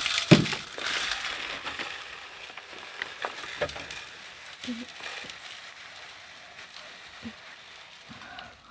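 Birdseed being poured into a bird feeder: a dry, rustling hiss of falling seed, heaviest in the first couple of seconds and thinning out, with a sharp knock just after it starts and a few small clicks later.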